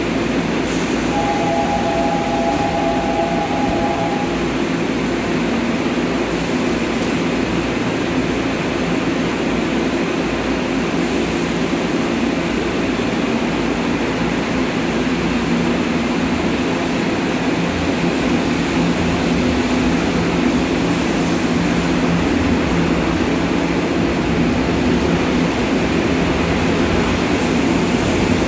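Seoul Subway Line 3 electric train with retrofitted GEC chopper traction control, humming at the platform, then pulling out with the sound growing louder near the end. A steady two-note door warning tone sounds for about three seconds near the start.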